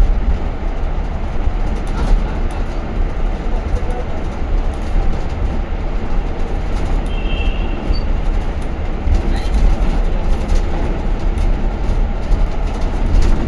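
Steady rumble and road noise of a moving vehicle, heard from on board, deepest at the very bottom. A brief high tone sounds about halfway through.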